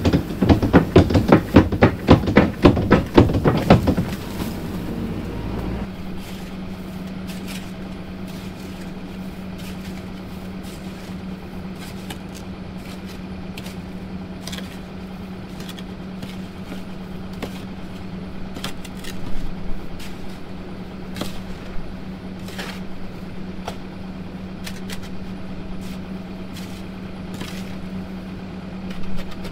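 Dirt and stones pouring from an excavator bucket into the hole for the first four seconds or so, a dense loud rattle. After that an engine idles with a steady hum, with scattered knocks and scrapes from work down in the hole.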